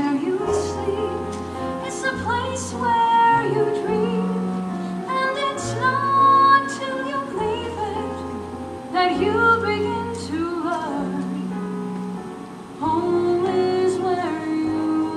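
A woman singing solo, holding and bending long notes, over a live theatre pit band playing long sustained bass notes.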